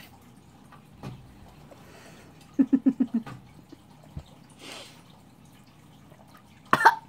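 Sipping and slurping a drink through a straw, with a quick run of about six low gulping pulses in the middle. A short, loud, high-pitched cry comes near the end.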